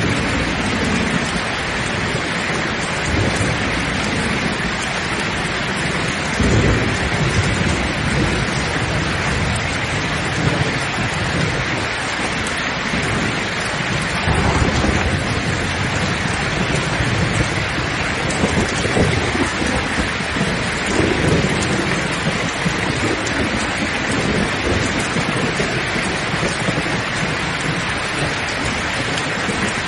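Steady heavy rain with thunder rumbling several times over it.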